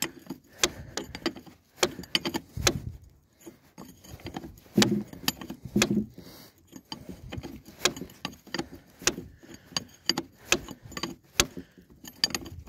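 Metal hand tools on trailer brake bolts: sharp, irregular clinks and clicks, a couple a second, with a few duller knocks.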